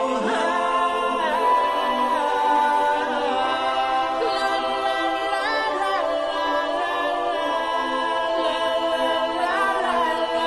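Background music of several voices singing together in long held notes, with slow slides in pitch.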